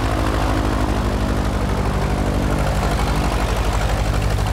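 Aerocar flying car's piston engine running steadily with a fast, even throb.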